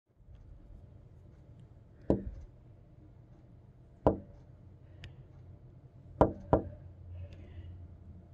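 Four sharp knocks at uneven intervals, the last two close together, over a faint low steady hum.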